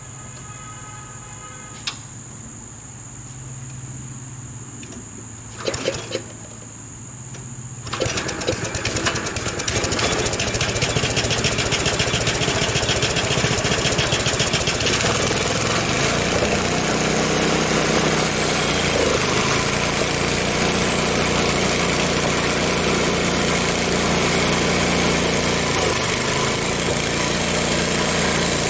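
Small gasoline engine of a Frontier OS23 portable sawmill starting about eight seconds in, then running steadily at speed. Before it, insects buzz steadily, with a click and a brief clatter of knocks.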